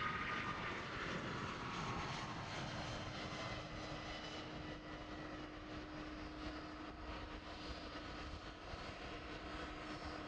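Boeing 777 jet engines at takeoff thrust as the airliner climbs away, a broad roar slowly fading with a whine that falls in pitch over the first couple of seconds.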